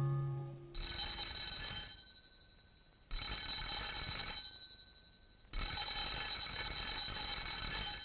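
Old wall-mounted electric doorbell ringing three times. The first two rings are short, about a second each, and the third is held longer. Each starts sharply and dies away.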